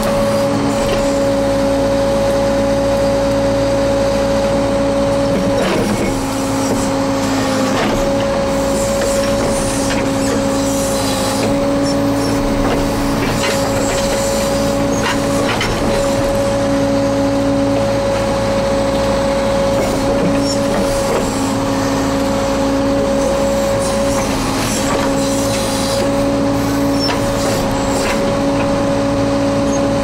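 Case 580L Turbo backhoe's Cummins turbo diesel running steadily under load as the backhoe digs out mud, with a steady whine and a few knocks from the boom and bucket.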